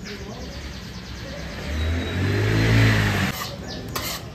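A motor vehicle passing close by. Its engine swells to a peak nearly three seconds in and then falls away. A short knock comes near the end.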